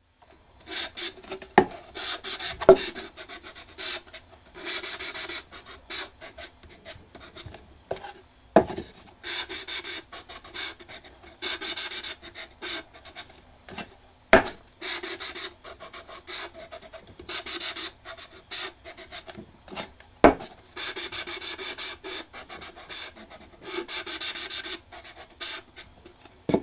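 Repeated rubbing strokes on a black-lacquered wooden box, each lasting one to two seconds with short pauses between, broken by several sharp knocks as the box is handled.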